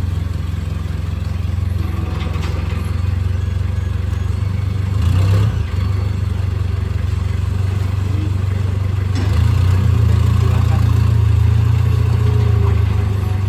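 A vehicle engine running steadily with a deep hum. It picks up briefly about five seconds in, then holds a louder, higher-revving note from about two-thirds of the way through, with some light clatter and scraping over it.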